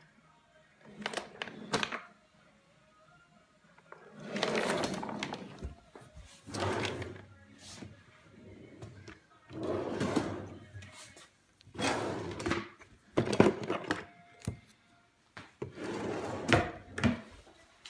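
Wooden desk drawers sliding open and shut again and again, with the things inside clattering as they are rummaged through.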